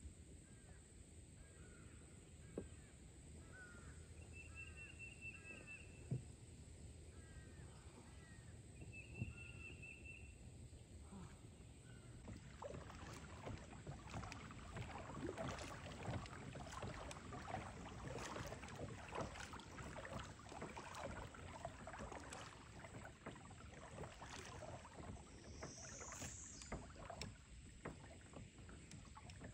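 Faint river ambience. A bird chirps repeatedly, with two short trills, through the first part. From about the middle on, a dense patter of small splashes and drips of water sounds around a kayak.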